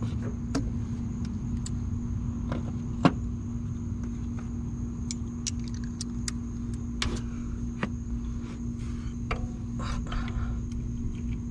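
Scattered metallic clicks and knocks of a wrench working a stubborn nut on a lowrider's front hydraulic cylinder mount, the sharpest about three seconds in, over a steady low hum.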